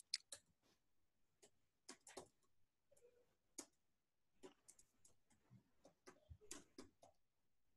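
Faint, irregularly spaced keystrokes on a computer keyboard as a line of text is typed, with near silence between the taps.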